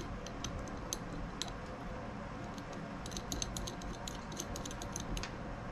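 Scattered light clicks and ticks of small brass fittings and caps being handled on a model M12B engine, clustering about three to five seconds in, over a faint steady hum.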